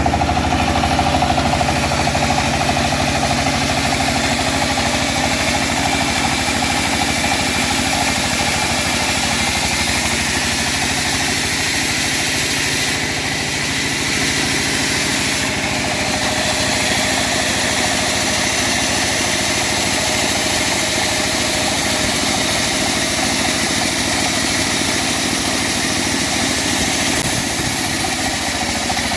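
Engine of a home-built bandsaw sawmill running steadily under load while the mill saws old teak, with a continuous hiss over the engine tone and a slight dip about halfway through.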